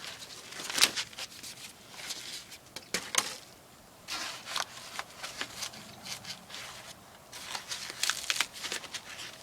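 Irregular crinkling and rustling with many sharp clicks and small knocks, heaviest about a second in, around three seconds in, and again around eight seconds in: material being handled and pulled loose.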